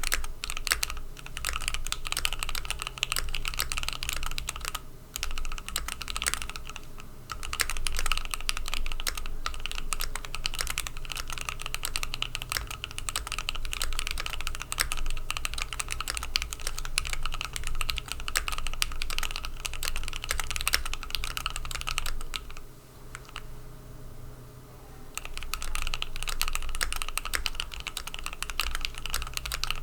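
Steady fast typing on a Keychron Q1 mechanical keyboard with lubed and filmed Gateron CJ switches, PBT keycaps and an aluminium plate, a dense run of key clacks. It eases into a brief lull a little past two-thirds of the way through, then picks up again.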